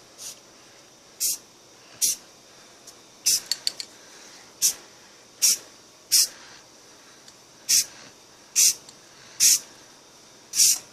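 Aerosol can of Rust-Oleum camo spray paint sprayed in short, light bursts, about eleven quick hisses roughly one a second. A few small clicks come about three and a half seconds in.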